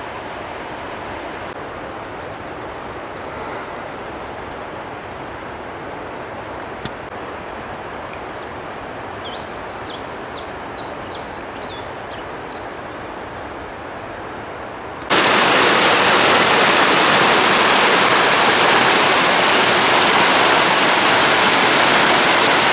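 Steady rush of a snowmelt mountain river at a distance, with a few small birds chirping about ten seconds in. About fifteen seconds in it cuts suddenly to the much louder, close rush of a forest stream cascading over rocks.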